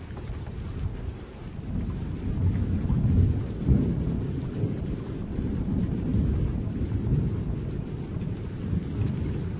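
Rolling thunder: a deep rumble that swells about a second and a half in, is loudest around three to four seconds in, then rolls on more quietly.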